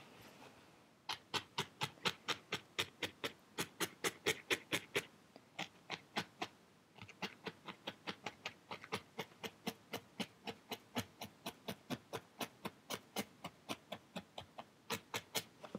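Felting needle stabbing repeatedly through wool into a foam pad, a sharp tick with each stab at about four to five a second. The stabbing pauses briefly twice, around five seconds in and near the end.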